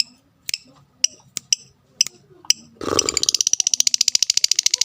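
Lovebird giving sharp single high chirps about two a second. Nearly three seconds in comes a loud noisy burst, then a fast rattling trill of about fifteen notes a second: the 'ngetik' ticks running on into 'ngekek' chatter of a fighter lovebird.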